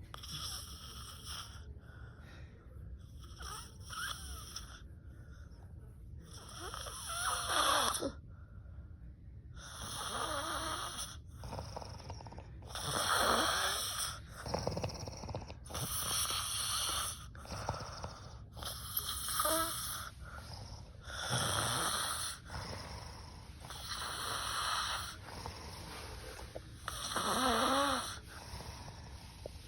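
A sleeping woman snoring loudly, about one snore every three seconds. Several of the snores have a pitch that falls as the breath goes on.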